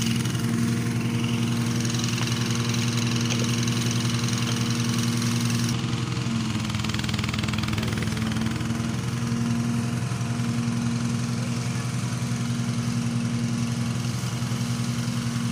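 A small engine running steadily at a constant speed, with an even hum that does not change.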